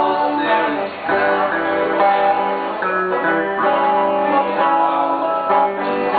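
Acoustic guitar played live, chords and notes ringing out in a steady song.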